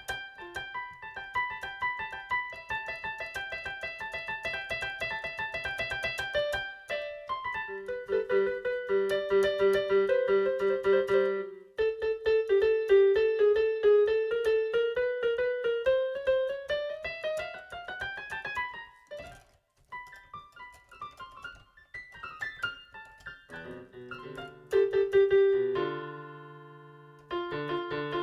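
Solo keyboard music with a piano sound. Fast repeated notes give way, about twelve seconds in, to a long run climbing steadily in pitch. After a brief break the playing turns sparser, and near the end a loud chord dies away into low held chords.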